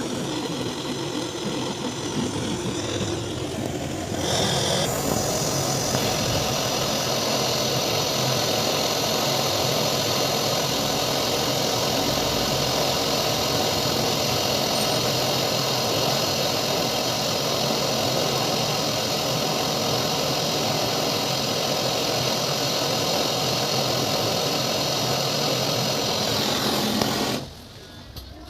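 A motor-driven machine runs with a steady, noisy hum that gets louder about four seconds in, then cuts off suddenly near the end.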